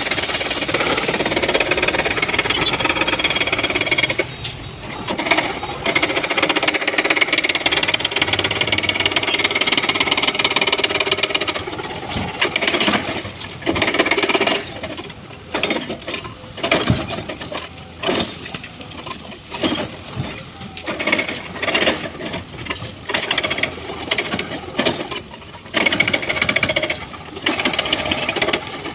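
A hydraulic excavator runs hard under load for about the first twelve seconds. After that comes a rapid, irregular series of knocks and clatters as rocks drop and tumble into a dump truck's steel bed.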